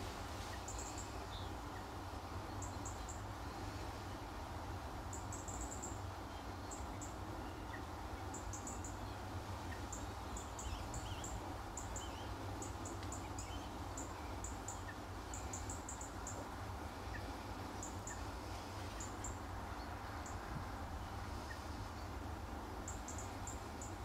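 Small birds giving high, thin calls in quick runs of two to four, every second or two, over a steady low background rumble.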